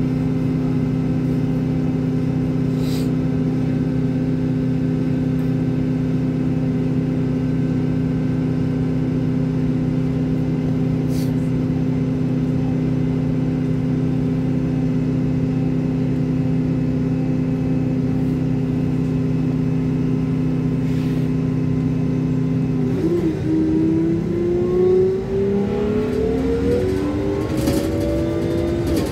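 Engine of the vehicle being ridden in, heard from inside the cabin. It idles steadily while stopped, then revs up with a rising pitch near the end as the vehicle pulls away.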